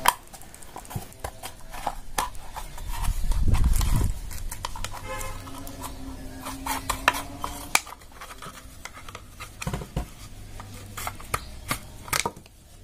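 A plastic bottle being cut into a small square piece: a run of scattered clicks and snips of the blade through the plastic, with a dull thump about three and a half seconds in and a faint drawn-out tone around six seconds in.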